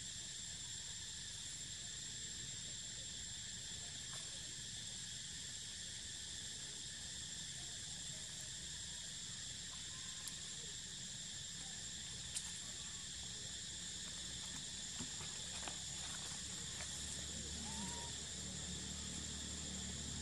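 A steady, high-pitched insect chorus, with a few faint clicks scattered through it.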